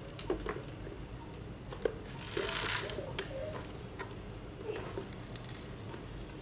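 Hard plastic shell of a Harman Kardon Onyx speaker being handled and fitted back together: scattered sharp clicks and knocks, with a brief scraping rustle about two and a half seconds in.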